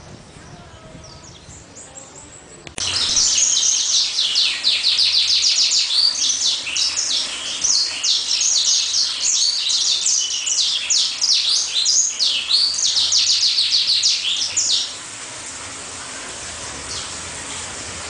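Caged songbird singing a long, rapid, high-pitched song of fast trills and twittering notes. It starts abruptly about three seconds in and stops a few seconds before the end, leaving faint background noise.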